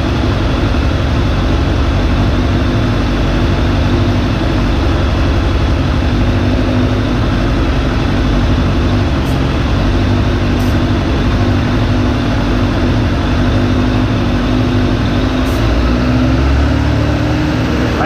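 Suzuki GSF600 Bandit's inline-four engine idling steadily while starter fluid is sprayed around the carburetor intake boots in a vacuum leak test. There are a few short hisses from the aerosol can, and near the end the idle note changes as fluid is drawn in where the owner suspects a leaking intake boot.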